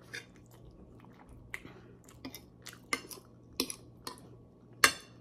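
Metal fork clinking and scraping against a plate while picking up spaghetti: a series of short, sharp clinks at uneven intervals, the loudest near the end.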